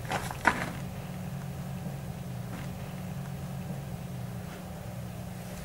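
Tank engine running with a steady low drone, with a single sharp crack about half a second in.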